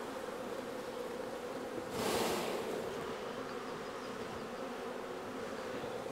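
Honey bees buzzing steadily around an open hive, a dense hum of many bees. A short burst of rushing noise stands out over it about two seconds in.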